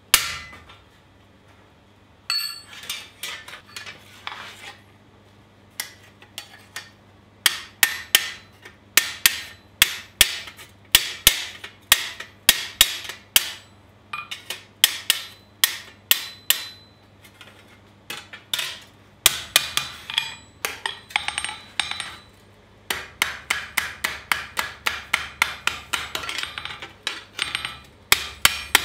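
Hand hammer striking a scythe blade's red-hot edge on a steel anvil, drawing the blade out: sharp ringing metallic blows in quick runs of about four or five a second, broken by short pauses.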